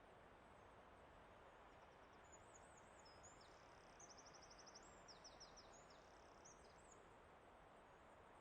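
Faint high-pitched song of a small songbird: quick chirps and short glides with a rapid trill in the middle, starting about two seconds in and stopping about seven seconds in. Behind it is a steady soft rushing noise.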